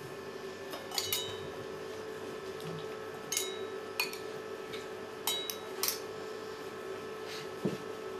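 A metal utensil clinking against a ceramic bowl as basil leaves are handled: about six short ringing clinks, scattered through the stretch, over a steady low hum.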